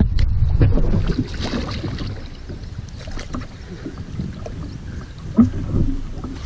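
Wind rumbling on the microphone over water splashing and lapping at the boat's side as a channel catfish is held in the water for release, with one sharper splash about five seconds in.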